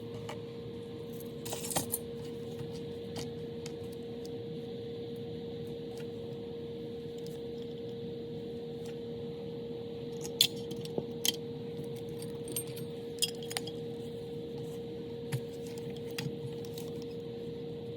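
Small metal parts clinking and tapping on a hard surface in scattered short clicks, most of them in the second half, over a steady low hum.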